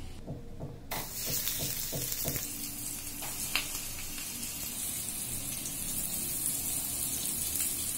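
Hot oil sizzling in a flat griddle pan as semolina-and-rice-flour-coated stuffed pomfret are laid into it. The hiss starts suddenly about a second in and grows stronger about halfway through, when a second fish goes in. A few light knocks are heard in the first couple of seconds.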